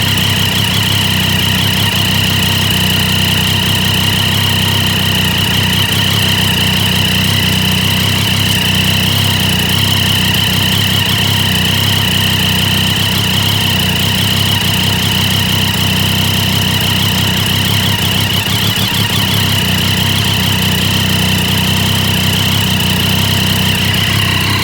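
Triumph Daytona 675's three-cylinder engine idling steadily. Its owner asks whether the sound points to an exhaust leak.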